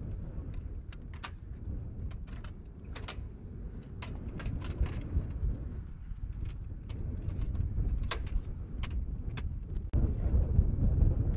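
Low rough wind rumble on the microphone, with scattered light clicks and taps from hands handling metal ammunition cans and rocket-pod containers. The rumble gets louder about ten seconds in.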